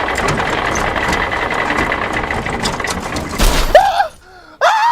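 Tractor engine running with a steady rattly drone. About three and a half seconds in there is a loud crash, the engine noise stops abruptly, and a man yells twice in long rising-and-falling screams.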